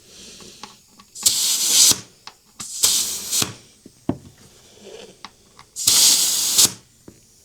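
Three short bursts of hissing, each under a second long, with faint small clicks and taps between them.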